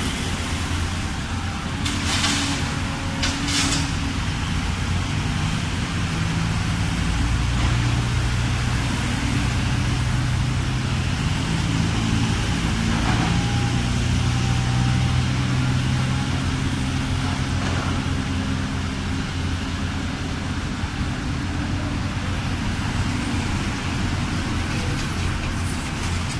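Caterpillar 320D excavator's diesel engine running under hydraulic load, its pitch rising and falling as it digs and swings, over the idle of a diesel dump truck. Two short hisses come about two and three and a half seconds in.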